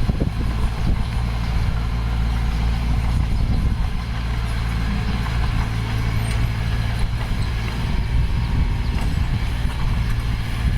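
Diesel engine of heavy earthmoving machinery running steadily with a low, even drone.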